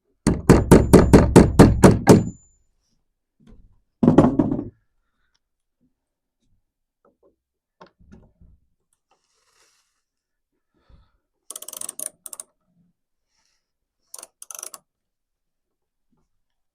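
Hammer blows, a fast run of about nine strikes with a faint metallic ring, then a shorter burst about four seconds in; quieter clinks and rattles of metal hardware follow near the end.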